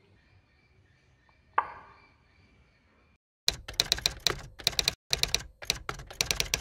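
Low room tone with a single sharp knock about a second and a half in. From about three and a half seconds in, a rapid run of typewriter key clicks in quick groups: a typing sound effect as a title spells itself out letter by letter.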